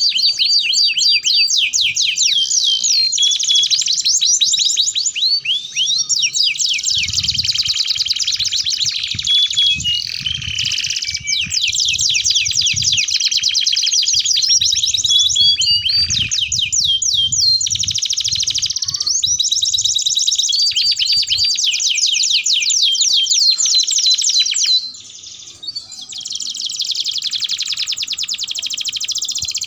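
Domestic canaries singing: a long, fast-running song of rapid trills and chirps, breaking off briefly about 25 seconds in.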